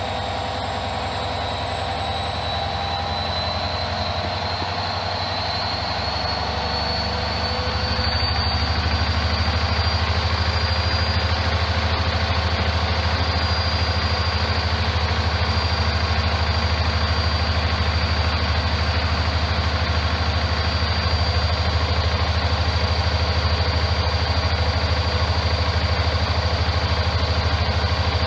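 Hoover washing machine on its 1600 rpm spin: the motor's high whine rises in pitch as the drum speeds up, then holds steady at full spin from about eight seconds in, over a steady low hum.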